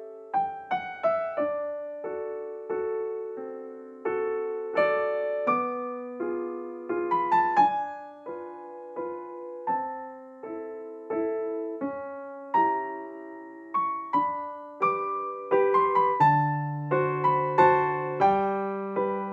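Background piano music: a gentle, unhurried melody of struck notes that ring and fade, over soft chords.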